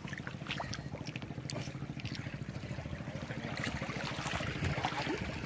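A steady, low engine drone with a fast, even pulse, along with a few scattered light clicks.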